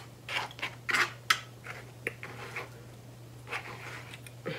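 A utensil scraping and clicking against the inside of a black plastic takeout bowl, scooping up the last of the food: a quick run of scrapes in the first second or so, then scattered ones.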